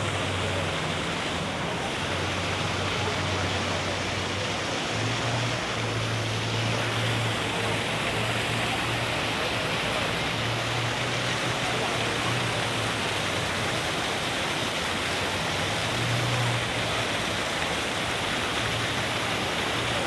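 Steady rushing street-ambience noise with a low engine hum that swells and fades several times.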